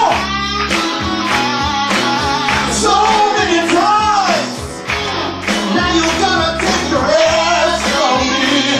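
Upbeat rock song with a steady drum beat, guitar and a singing voice.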